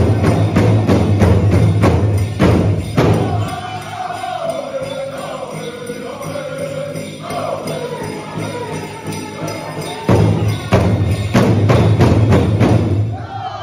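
Powwow drum group playing a straight dance song: several men strike a large drum in steady unison while singing. The drumbeats are loudest at the start and again from about ten seconds in; in between, the drum drops back and the singing carries the song.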